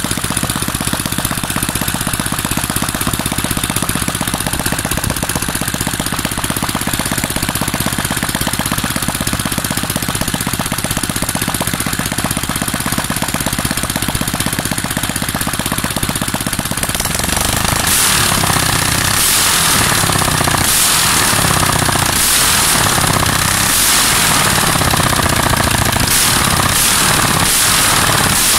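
Modified Honda GX200 engine with a bored 76 mm piston being run in: it idles steadily with a fast, hard firing rhythm, then about 17 seconds in it is blipped up and down in a series of short revs, louder.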